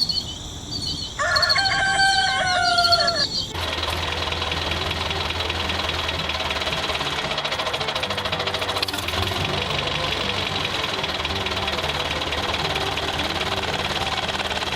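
A rooster crows once, then an engine starts and runs steadily with a fast, even pulsing.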